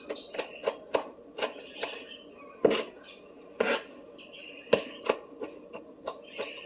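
Kitchen knife chopping small tomatoes on a cutting board: irregular sharp knocks of the blade striking the board, two or three a second, a few of them louder.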